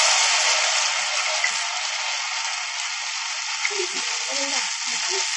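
Ghevar batter frying in very hot ghee in a deep steel pan: a loud, steady sizzle of dense bubbling that slowly eases as the batter sets.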